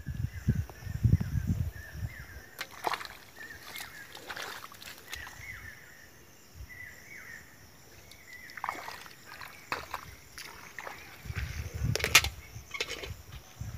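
Hands and bare feet sloshing and squelching in shallow muddy water while searching for snails, louder at the start and again near the end, with scattered sharp clicks and knocks. A faint, short high call repeats in the background through the first half.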